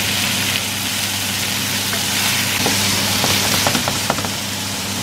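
Chicken pieces sizzling in oil in a frying pan, with a wooden spatula stirring and clicking against the pan from about two seconds in, over a steady low hum.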